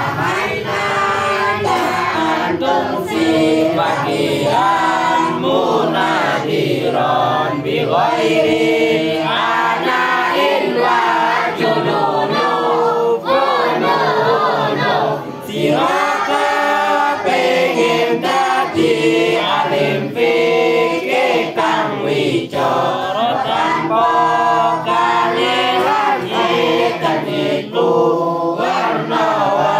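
A group of girls chanting a devotional text together in unison to a sung melody, one of them singing into a microphone.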